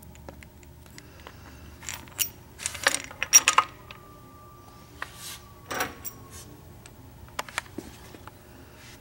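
Light metal clinks and clatter of main bearing caps being handled and one set down onto the engine block over the crankshaft, with a cluster of louder clinks about three seconds in and a few lighter clicks near the end.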